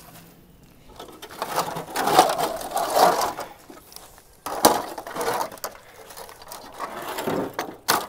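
Rustling and crunching in dry leaf litter and undergrowth, with a sharp knock about four and a half seconds in and another near the end.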